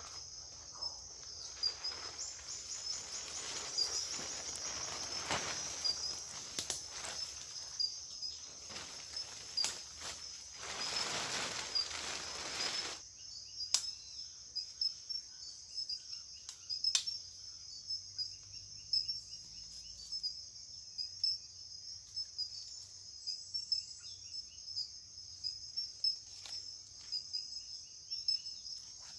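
Insects trilling steadily in a high-pitched chorus, with scattered clicks and a louder rush of noise lasting about three seconds a little before the middle.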